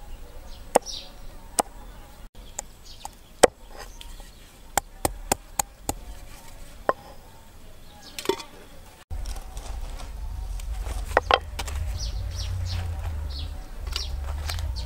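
Knife chopping on a wooden chopping board: about a dozen sharp strikes at an uneven pace over the first seven seconds. After a cut, a steady low rumble with short high chirps in the background.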